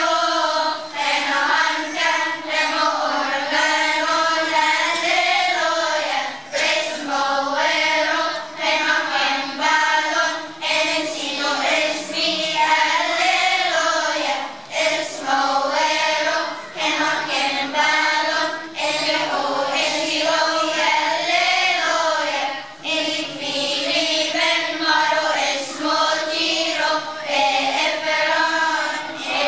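Children's choir of boys and girls singing together, one continuous sung melody with short breaks between phrases.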